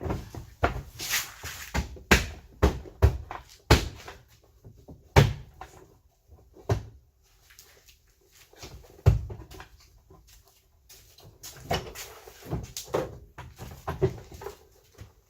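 Plastic rear bumper cover being pushed and knocked onto its mounting tabs: a run of irregular sharp thumps and clicks, sparser in the middle.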